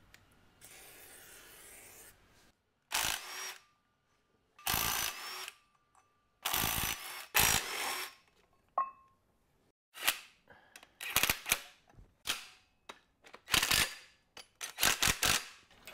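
A brief hiss of a WD-40 aerosol being sprayed, then a cordless Ryobi impact wrench undoing bolts on an engine in a string of short bursts, about a dozen, the later ones quicker and shorter.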